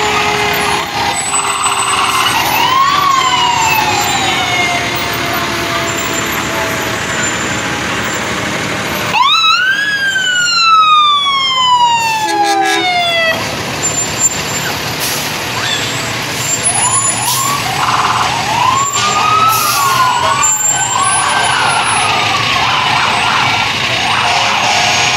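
Fire engine sirens, each winding up quickly and then sliding slowly down in pitch, three times: faintly near the start, loudest about nine seconds in, and again near the end with a few short chirps before it. Under them runs the steady rumble of the trucks rolling past.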